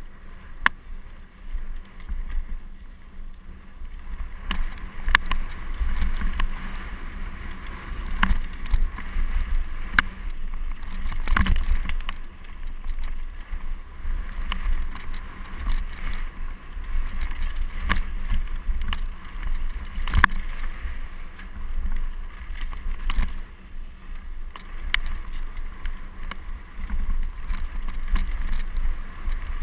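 Mountain bike riding fast down a rough dirt-and-stone trail, recorded on a GoPro HD Hero: a constant low rumble with frequent sharp knocks and rattles as the wheels and frame hit stones and bumps.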